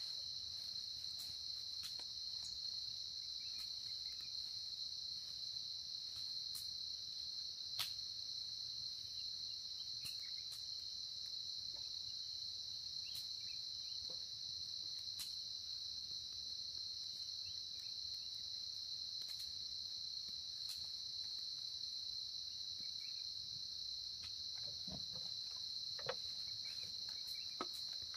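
Steady high-pitched chorus of crickets, one unbroken trill, with a few scattered sharp clicks.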